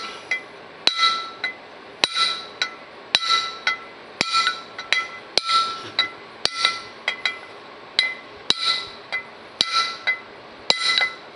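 Hammer tapping a copper punch to drive a new bushing into the bore of a John Deere 4400 combine's center drive pulley, working around its rim. The light, evenly spaced taps come about once a second, each leaving a short metallic ring.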